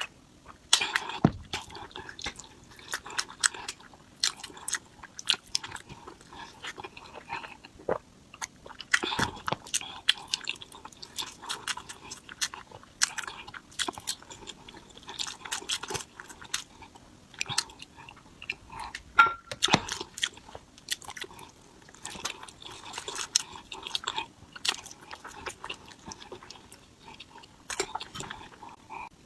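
Close-miked eating of noodles and fried eggs: wet chewing and biting, with irregular smacking clicks and short bursts.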